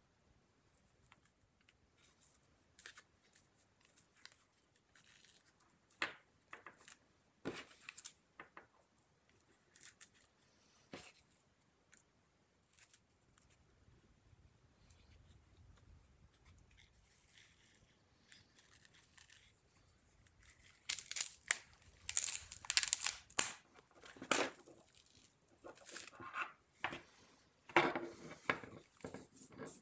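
Hawk feathers rustling and crackling dryly as hands handle them and gather them into a bundle, in short irregular bursts, busiest and loudest about two-thirds of the way through.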